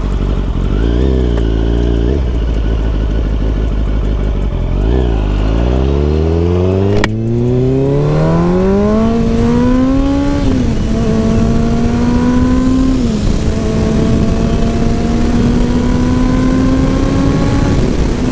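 Kawasaki Ninja ZX-10R's inline-four engine, with a straight-through exhaust, accelerating: two short blips of the throttle, then the engine note climbs steadily, drops at two upshifts about ten and thirteen seconds in, and pulls on slowly in a higher gear near the end.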